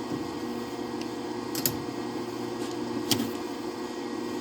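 Steady hum of a welding machine left running, with two sharp clicks, about one and a half and three seconds in.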